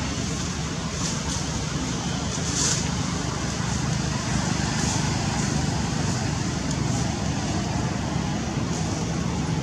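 Steady outdoor background noise: an even low rumble with a fainter hiss over it, and no clear animal calls.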